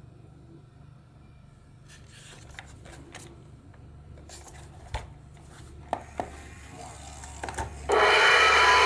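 Faint clicks and handling knocks, then about eight seconds in a gong alarm clock's striker starts hammering its gong rapidly in a loud, continuous rattling ring.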